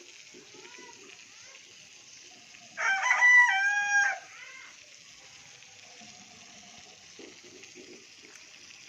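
A single cock-a-doodle-doo crow, a bit over a second long, about three seconds in, rising then held and stepping down in pitch. Faint short chirping calls and light rustling sit underneath.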